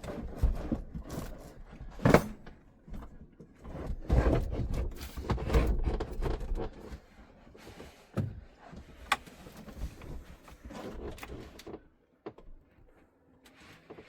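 A fridge being slid and pushed into a tight cabinet opening: a run of irregular knocks, bumps and scraping, with a sharp knock about two seconds in and the loudest shoving between about four and six seconds, quieter after that.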